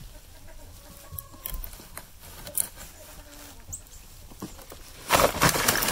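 A thick sheet of ice is handled with faint scratches and small crackles. About five seconds in, it cracks and breaks apart with loud, dense crunching and shattering.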